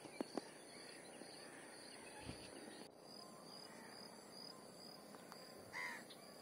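Faint outdoor ambience: insects chirping steadily in the background, high-pitched and about two chirps a second, with a few faint clicks and a soft knock. A brief call sounds near the end.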